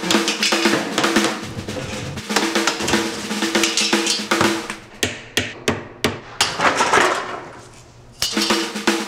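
Snare drum music: quick snare hits and rolls over a held low note. From about five seconds in the note drops out and the hits thin to a few separate strokes, then the full beat returns near the end.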